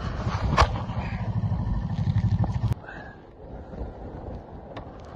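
Low rumble of wind buffeting the microphone, with a few handling clicks. It cuts off abruptly almost three seconds in, leaving a faint outdoor hush with a few small ticks.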